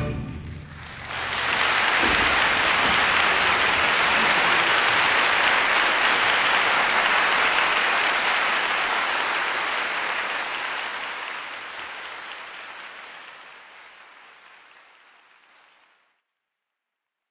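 Audience applause. It starts about a second in, as the orchestra's last chord dies away, holds steady, and then fades out gradually over the last several seconds.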